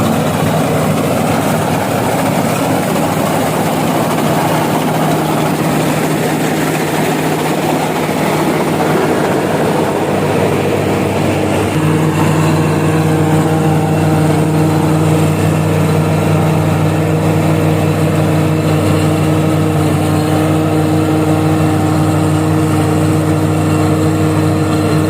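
Combine harvester's engine running steadily as the machine cuts and threshes rice. About halfway through, the hum settles into a clearer, steadier pitch.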